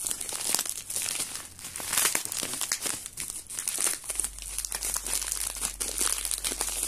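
Clear plastic packaging crinkling and rustling as it is handled and pulled open by hand, in dense, irregular crackles.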